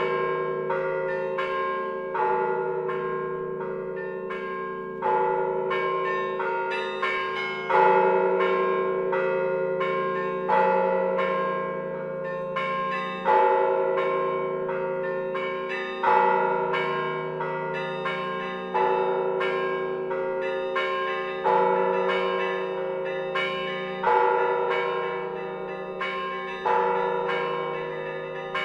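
Church bells ringing a peal: several bells struck one after another several times a second, their tones ringing on and overlapping, with a louder stroke about every two and a half seconds.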